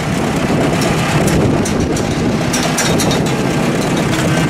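1959 Oliver 550 tractor's four-cylinder gasoline engine idling steadily.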